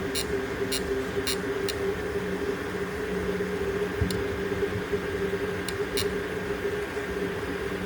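3D printer running a print: its stepper motors hum with steady tones, with sharp ticks about twice a second at first, then a few scattered ones.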